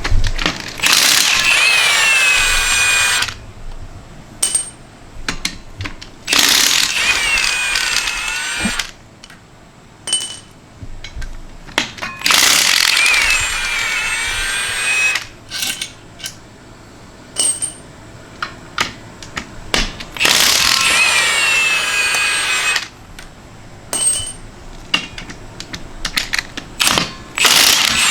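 Power tool run in four bursts of two to three seconds, its motor pitch bending within each run, as bolts are removed while tearing down a Ford Coyote 5.0 short block. Short clicks and clanks of hand tools and parts come between the runs.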